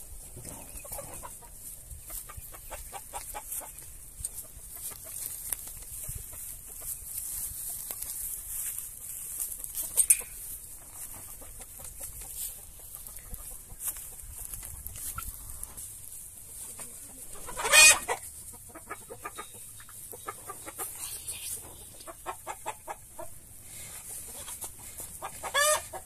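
Chickens clucking on and off, with one loud call about eighteen seconds in and another near the end.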